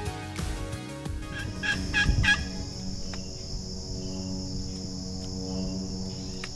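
Osceola wild turkey calling: a quick run of four or five notes about a second and a half in, over soft background music. A steady high insect drone then takes over.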